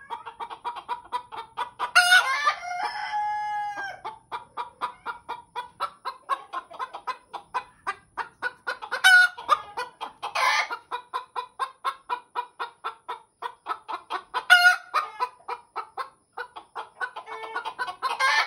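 Hens cackling: a steady run of short clucks, about four a second, broken every few seconds by a louder, sharper squawk, with a longer drawn-out call about two seconds in.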